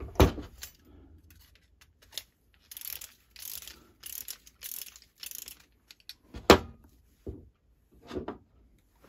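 Clock mainspring being wound by hand, the click ratcheting in a run of about seven short strokes, roughly two a second, through the middle. A knock of the movement being handled comes at the start, a louder one a little later, and a smaller one near the end.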